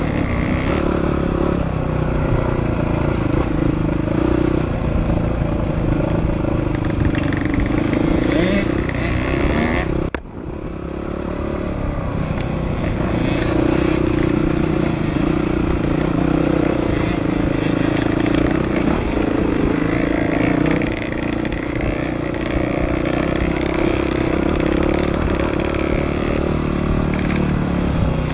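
Dirt bike engine running while riding a rough trail, its note rising and falling with the throttle. The sound drops suddenly about ten seconds in, then builds back up.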